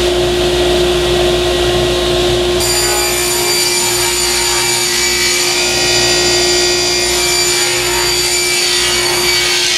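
Table saw running and ripping a long cut through a large MDF panel. About two and a half seconds in, the cut turns harsher and higher-pitched.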